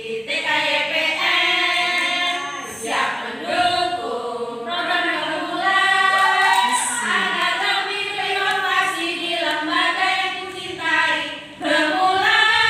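A group of women singing a yel-yel cheer song together.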